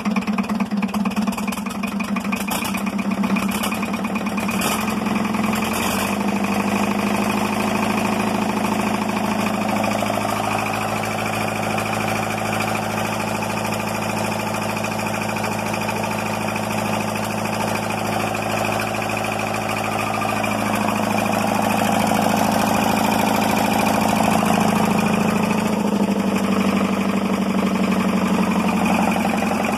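Hanomag R27 three-cylinder diesel engine running, its speed rising and falling a few times as the throttle lever on the injection pump is moved by hand.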